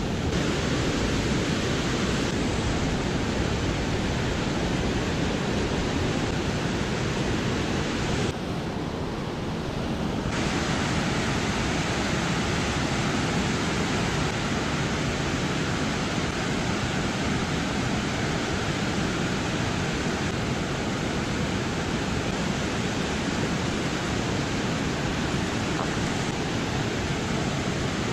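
Steady rush of river water pouring over a low dam and churning through the whitewater below it. The sound goes briefly muffled for about two seconds, roughly eight seconds in.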